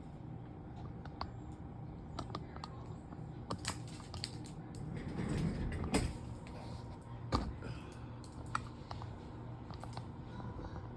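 Groceries being handled and put away in a fridge: scattered clicks, rustles and knocks, with sharper clunks about six and seven seconds in, over a steady low hum.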